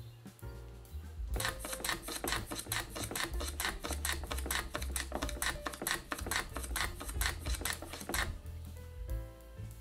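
Metal hand plane planing walnut on a shooting board: a fast run of short swishing strokes, about four a second, starting about a second in and stopping near the end. Soft background music plays underneath.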